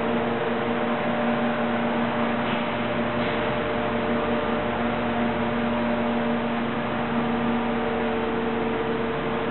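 Steady hum and noise of running factory machinery, with a constant low hum tone and its overtone.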